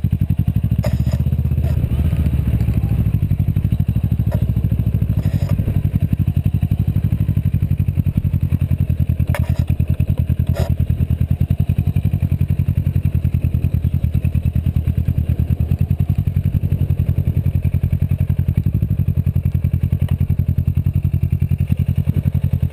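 Motorcycle engine running steadily at low revs, a fast even pulsing, with a few sharp clicks or knocks on top, the plainest about 9.5 and 10.5 seconds in.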